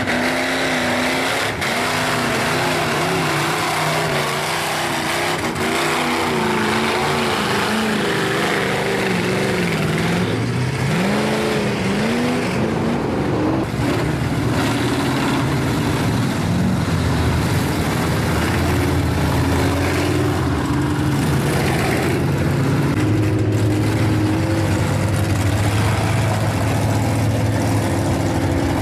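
Lifted mud trucks' engines revving hard as they plough through a mud pit, the pitch climbing and falling sharply with the throttle around the middle, then settling into a steadier drone.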